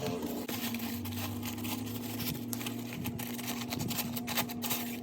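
Scattered crackles and clicks of a packaged box being handled, over a steady low electrical or fan hum.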